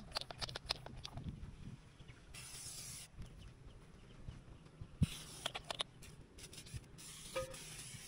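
Small handheld pump pressure sprayer spraying plants in two short hissing bursts, about two seconds in and again near the end, with scattered sharp clicks and taps between.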